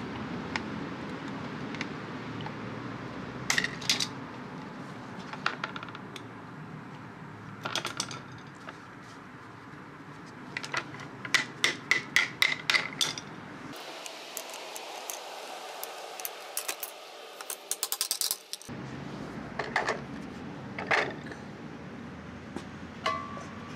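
Metal snips cutting sheet lead in sharp clicks, with cut lead pieces clinking as they are handled and dropped. About halfway through comes a quick run of clicks, over a steady low background.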